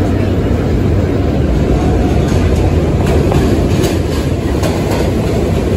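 New York City subway trains rolling through an elevated station: a steady heavy rumble, with the wheels clicking over rail joints from about two seconds in.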